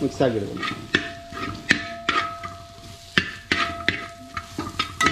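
A flat metal spatula scrapes and knocks against a large aluminium pot, stirring vegetables and masala as they fry in ghee, with a light sizzle underneath. The strokes come irregularly, about two or three a second.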